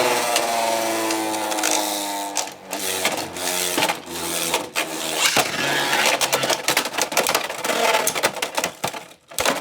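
Beyblade X spinning tops battling in a plastic stadium: a whine that falls in pitch over the first couple of seconds, then rapid rattling clicks and sharp plastic clacks as the tops strike each other.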